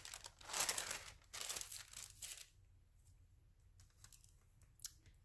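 Thin magazine paper being cut and handled: two bursts of paper noise in the first two and a half seconds, then quiet apart from a light click near the end.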